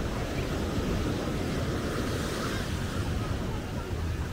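Ocean surf washing on a sandy beach, a steady rush of waves, with wind buffeting the microphone.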